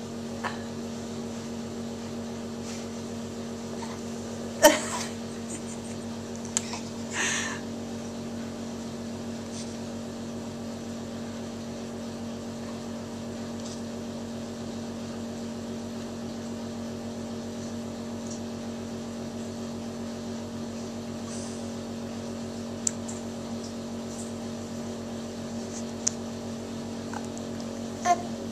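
A steady low hum, with one sharp click about five seconds in, a short hissy burst a couple of seconds later, and a few faint ticks near the end.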